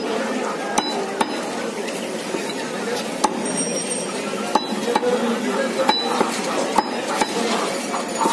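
Large butcher's knife chopping raw chicken on a wooden log chopping block: sharp, irregular chops, roughly one a second, over a steady background din.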